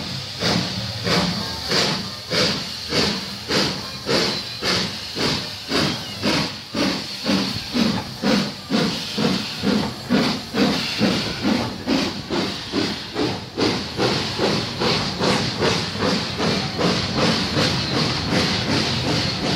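LNER B1 class steam locomotive 1264 pulling away with its train, exhaust chuffing in a steady beat with hissing steam. The beat quickens as it gathers speed, then gives way to a more even rumble as the coaches roll past near the end.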